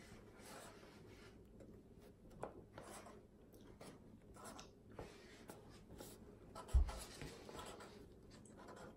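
A pen scratching on a paper plate in a series of short, faint drawing strokes, with one dull low thump about two-thirds of the way through.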